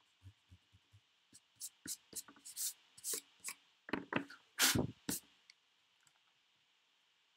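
White block eraser rubbed across pencil lines on drawing paper: a few soft quick strokes, then a run of louder, irregular swishes that stops about five and a half seconds in.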